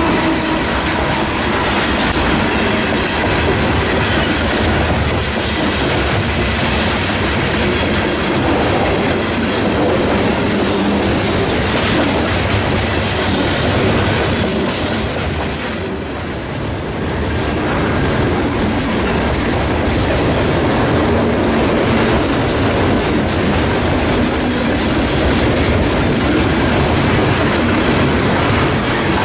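Norfolk Southern freight train passing close by: a diesel locomotive goes past at the start, then a long string of open-top hopper cars rolls by. Loud, steady noise of wheels on rail, dipping briefly about halfway through.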